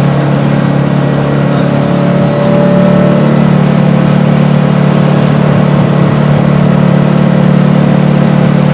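Air-cooled VW Beetle 2275 cc flat-four with an FK8 cam and Weber IDF carburettors, running steadily through a merge-collector competition exhaust, heard from inside the cabin. It gets louder about two and a half seconds in and then holds steady.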